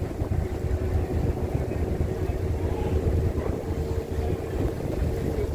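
Drift-ice sightseeing boat under way through sea ice: its engine and hull give a steady low rumble with a faint steady hum over it.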